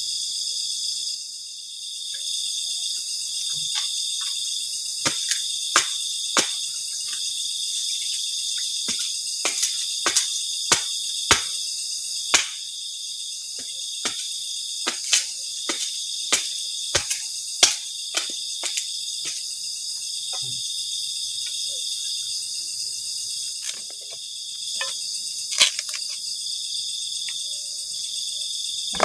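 A steady high-pitched chorus of forest insects, with many irregular sharp clicks and snaps, thickest in the middle.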